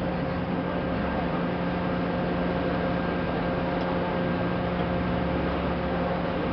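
Steady drone of a whale-watching boat's engines under way: a low, even hum with a few steady tones over a rushing noise.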